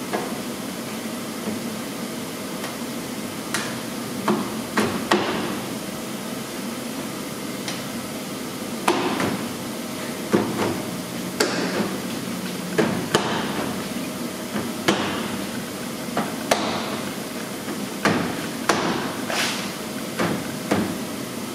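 Repeated sharp knocks as a plastic front lip spoiler on a BMW E30 is struck and pushed by gloved hands into its clips along the underside of the front bumper. The knocks come irregularly, often two or three in quick succession, over a steady background hum.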